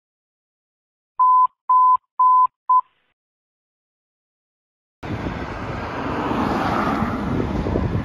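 Four short electronic beeps at one steady high pitch, the last one shorter, over silence. About five seconds in, outdoor background noise starts, with wind on the microphone.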